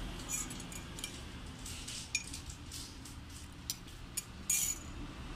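Kitchen utensils and dishware clinking lightly: a series of scattered, irregular small clicks and taps, with a slightly longer, louder clatter near the end.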